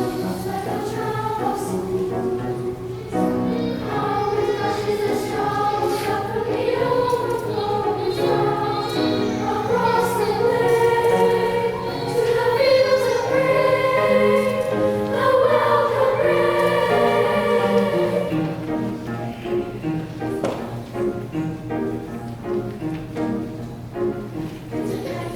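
Children's choir singing a piece in parts, building to its loudest about halfway through, then dropping back to softer, shorter notes near the end.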